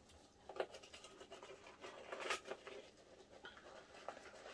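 Faint scratching and rustling as a Nike Air Max 1 sneaker is turned over and handled, with a few short scrapes of hands on its leather upper.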